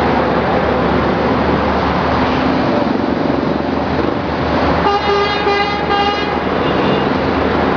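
Steady noise of tyres and engines from busy multi-lane highway traffic, with a vehicle horn honking in several quick toots about five seconds in.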